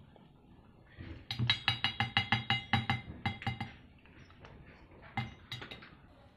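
A spoon clinking rapidly against a metal cat-food bowl as the food in it is stirred. There are about six ringing clinks a second for a couple of seconds, then a few more clinks near the end.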